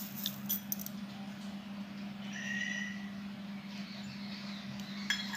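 Spoon stirring grated coconut and sugar in a kadai, heard as faint scraping and a few light clicks over a steady low hum. About two seconds in, a short high call holds one pitch for under a second.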